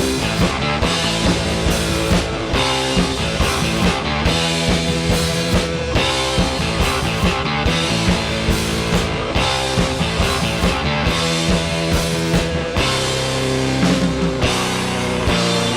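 Rock band playing an instrumental passage: a repeating electric guitar riff over bass and a steady drum beat.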